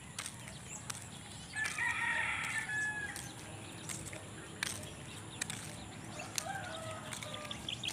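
A rooster crows once, starting about a second and a half in and lasting over a second. Faint bird calls and a few light clicks sound around it.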